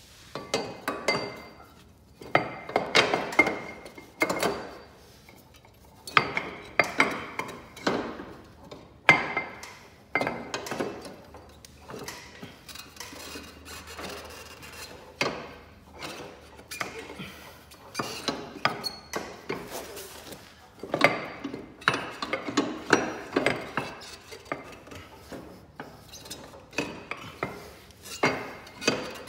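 Metal clanks, knocks and rattles as a red bolted drive-wheel plate of an Altoz TRX tracked mower is wrestled by hand into place inside the rubber track. The clatter comes in irregular bursts, with short lulls between them.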